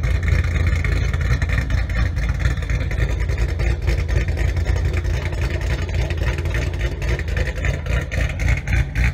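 A loud engine running steadily with a rough exhaust, many sharp pops through it.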